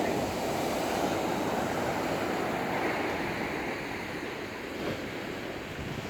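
Rough sea surf washing in steadily, with strong wind on the microphone.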